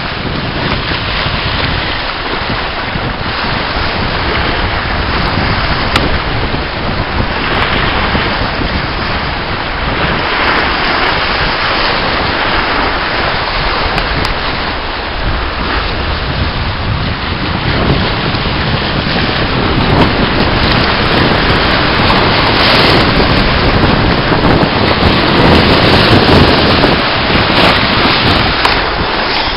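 Choppy sea waves breaking and washing over a rocky shore, with wind buffeting the microphone. The surf swells louder over the last third.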